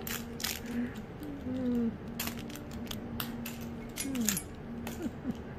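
Scattered sharp clicks and light rattles, several a second at times, as a cat plays with a feather wand toy on a rug, over a steady low hum with a few short sliding tones.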